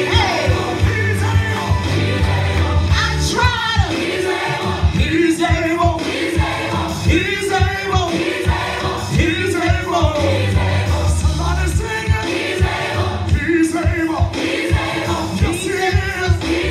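Church worship music: singing over a steady drum beat and bass.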